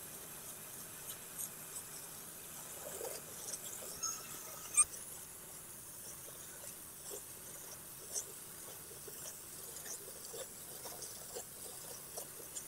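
Faint, steady hiss of a pressure-washer spray hitting vinyl siding at a distance, with scattered light ticks and one sharper click about five seconds in.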